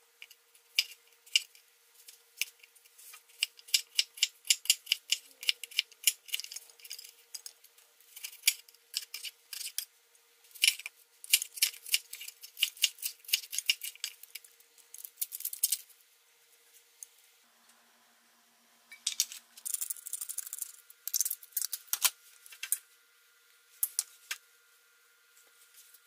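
Kitchen knife chopping fruit and vegetables on a wooden cutting board: runs of quick, sharp taps, several a second, with short pauses between batches.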